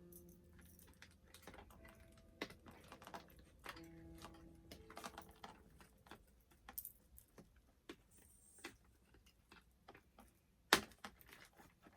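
Scattered light clicks and taps of small plastic doll accessories and packaging being handled, with one sharper, louder click near the end. Faint background music with held notes runs under the first half.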